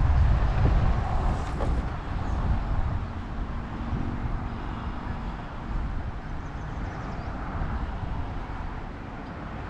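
Wind buffeting the microphone, a low rumble that is strongest in the first couple of seconds and then eases.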